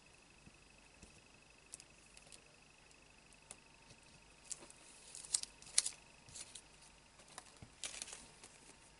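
Thin clear plastic pocket sheet crinkling and rustling in a few short bursts as it is handled, after faint light taps in the first few seconds.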